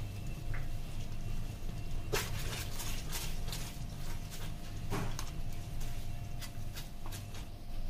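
Kitchen prep handling noise: two sharper knocks about three seconds apart and scattered light clicks over a steady low hum.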